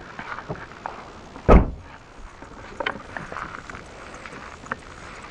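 A car door shutting with one heavy thump about one and a half seconds in, with small clicks and rustles around it.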